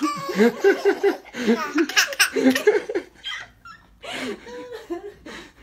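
Baby laughing in a quick run of short bursts for about three seconds, then a few softer vocal sounds.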